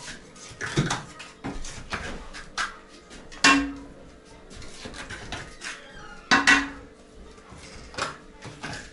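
Clatter of metal items being knocked and scraped while debris is cleared around a brick stove: scattered knocks, with two loud metallic clanks, about three and a half seconds in and again about six seconds in, each ringing briefly.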